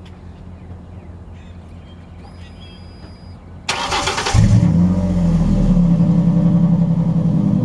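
2004 Ford Ranger Edge engine starting: a brief burst of starter cranking about halfway through, then the engine catches and settles into a loud, steady, low idle.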